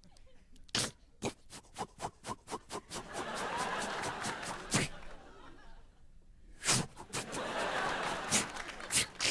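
Studio audience laughing in two waves, starting about three seconds in and again about seven seconds in, after a quick run of sharp clicks, about four a second, voiced as sound effects into a microphone.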